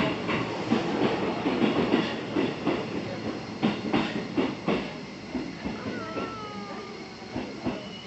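Electric commuter train running out past the platform, its wheels clattering over the rail joints in a run of sharp clicks over a steady rumble. The noise dies down after about five seconds as the train draws away.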